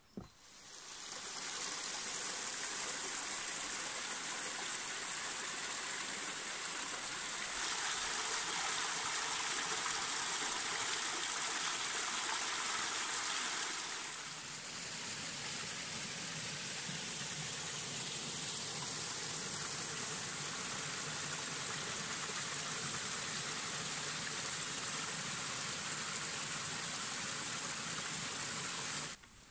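Small woodland stream running and trickling over its bed, a steady rush of water that fades in and cuts off abruptly near the end.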